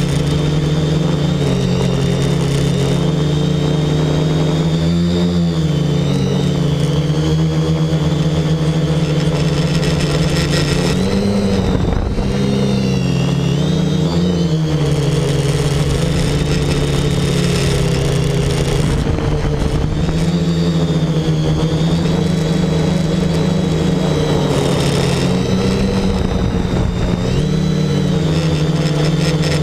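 X525 quadcopter's four 1000 kV brushless outrunner motors spinning 10x4.5 props in flight: a steady buzzing hum whose pitch dips and rises with throttle changes about 5 seconds in, around 12 to 14 seconds in, and near the end.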